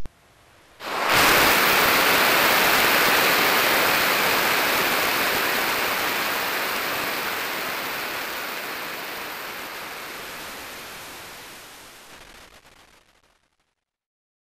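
Running motor bearing heard through the Ultraprobe 10,000 ultrasonic detector at 30 kHz, picked up by its RAS-MT magnetic transducer: an even rushing hiss. It starts suddenly about a second in, then slowly fades out and stops shortly before the end.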